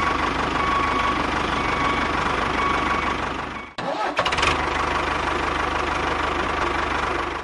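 A motor running steadily, engine-like, cut off abruptly about four seconds in and then running on again.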